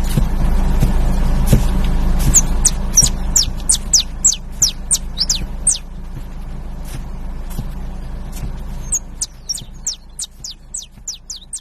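Saffron finch (canário-da-terra) singing: a rapid series of short, sharp downward-slurred notes, about three a second, in two phrases with a pause between. A low steady rumble underlies the first part and fades out.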